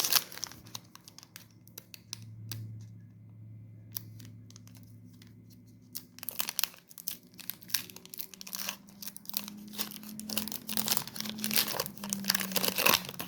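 Foil Pokémon TCG booster pack wrapper being handled and torn open: scattered crinkles, a quieter pause, then dense crinkling and tearing from about halfway through.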